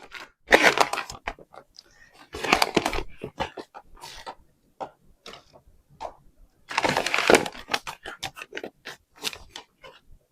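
Bag of milk paint powder being opened and handled: three bursts of crinkling and tearing packaging, with small clicks and taps in between.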